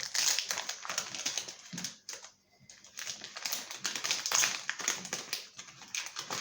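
Rapid crinkling and clicking as a Pokémon card booster pack and its cards are handled, with a short pause about two seconds in.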